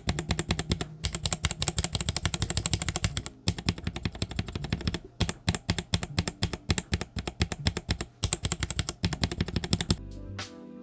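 Keys on a mechanical keyboard with Gateron Yellow linear switches, lubed, pressed rapidly over and over: a dense run of keystroke clacks with a few short pauses. Guitar music begins near the end.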